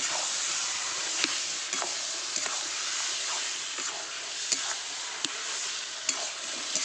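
Yogurt-marinated mutton pieces sizzling in hot spiced oil in a metal wok while being stirred, the metal spatula scraping and knocking against the pan in short clicks every half second or so.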